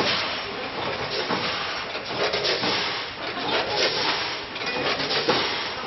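Machinery of an automatic granule packing line running: a steady noise with irregular clacks and knocks.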